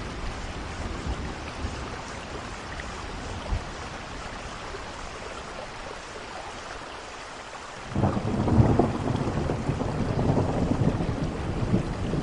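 Steady rain falling; about eight seconds in, thunder breaks in suddenly and rumbles on loudly.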